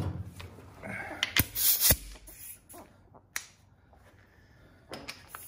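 Scattered clicks and knocks of metal hand tools working on a motorcycle front fork, the sharpest two a half second apart about a second and a half in, with a brief high scrape between them.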